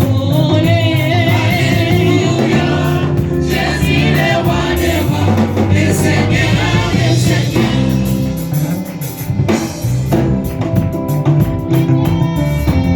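Gospel music: voices singing with vibrato over sustained instrumental backing, with a short dip in loudness about nine seconds in.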